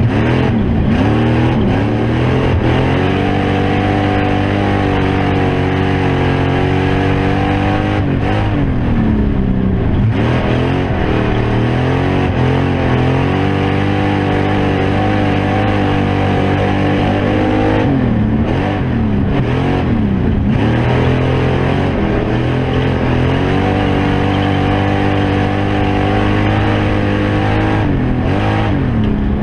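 Factory stock dirt-track race car's engine running hard, heard from inside the cockpit. The revs hold high and steady for long stretches, then drop briefly and waver about every ten seconds as the driver lifts off for the turns, before climbing back up.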